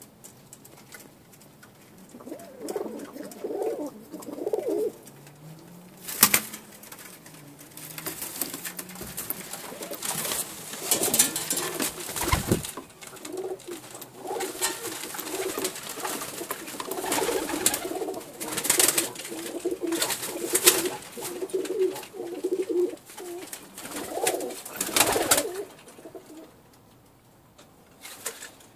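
Pakistani highflyer pigeons cooing over and over in their loft. The cooing starts a couple of seconds in, is fullest through the middle and dies away near the end, with a few sharp clatters between the coos.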